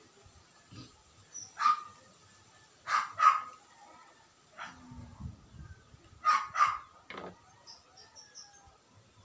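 A dog barking in short, sharp barks, about seven in all, several coming in quick pairs.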